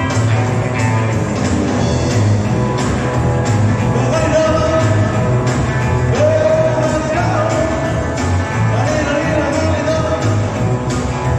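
Live rock-and-roll band playing, with electric guitar, bass guitar and drum kit, and a singer's voice coming in about four seconds in.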